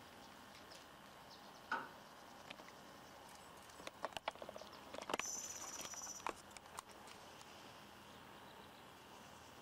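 Faint clicks and handling noise from the camcorder as it is moved, with a thin, steady high whine lasting about a second, about five seconds in, over quiet outdoor background.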